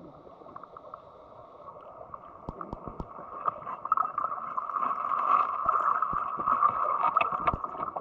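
Stream water heard through a submerged camera: a gurgling rush that grows louder about halfway through, with scattered short knocks and clicks against rock.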